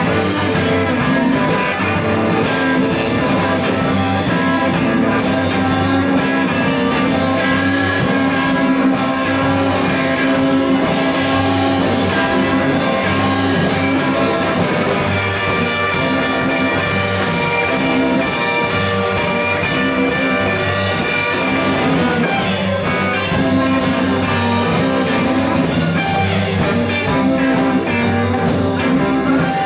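Live blues band playing: electric guitar over bass and drum kit, with a steady beat.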